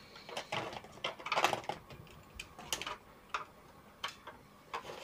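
Small irregular clicks and rustling of wires and plastic connectors being handled and pushed into a CRT television's circuit board.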